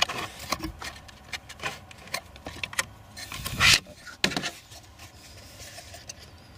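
Plastic clicks, rattles and scraping as a BMW GM5 body control module is worked out of its plastic cradle, with a louder scrape about three and a half seconds in.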